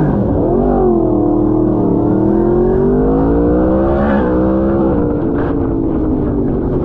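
Superbike engine heard from the rider's seat, revs rising under acceleration for about two seconds, then dropping sharply about four seconds in before running on steadily.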